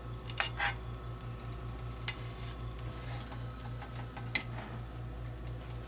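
Spatula scraping and tapping in a nonstick frying pan while spreading a lump of lard, with a few short scrapes near the start and a sharp click a little over four seconds in, over a steady low hum.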